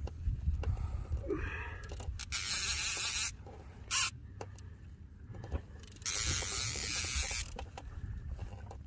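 Fishing reel's drag buzzing in bursts as a running fish pulls line off: two longer runs about two and six seconds in and a short one about four seconds in, over a steady rumble of wind on the microphone.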